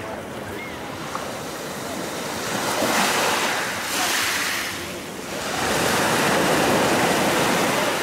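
Small sea waves breaking and washing onto the shore, swelling twice: a little past two seconds in and again from about halfway.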